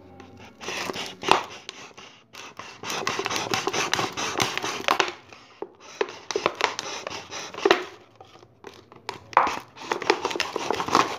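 Kitchen knife sawing through a thin plastic soft-drink bottle: crackling, scraping strokes of the blade in the plastic, in four spells with short pauses between.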